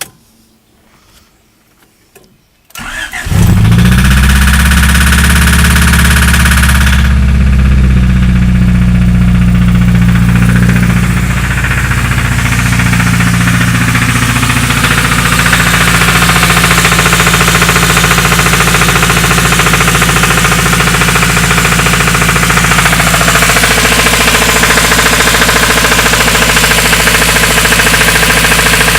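Honda D16 four-cylinder engine starting about three seconds in, then running with a steady rapid knocking: a bad rod knock from a broken connecting rod bearing. It runs faster at first and settles to a lower idle about eleven seconds in.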